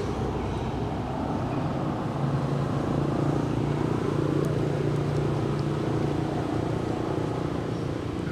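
A motor vehicle engine running steadily. Its low hum grows louder about two seconds in and eases off near the end.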